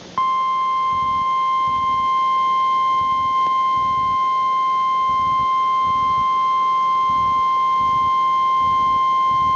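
NOAA Weather Radio 1050 Hz warning alarm tone: one loud, steady, single-pitched tone that starts just after the opening and holds without a break. It marks the start of a National Weather Service warning broadcast.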